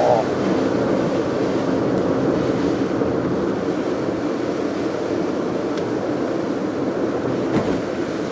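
A car driving at a steady pace: an even rush of tyre, road and engine noise heard from the car.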